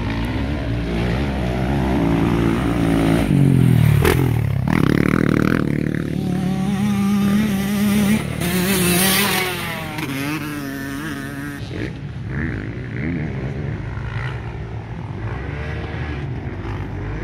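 Motocross dirt bike engine revving up and down through the gears as it climbs the hill, loudest in the middle, then dropping to a quieter, more distant running sound as the bike rides away across the track.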